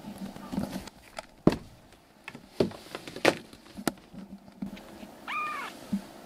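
Several sharp knocks and bumps, then a young kitten gives one short, arching mew about five seconds in.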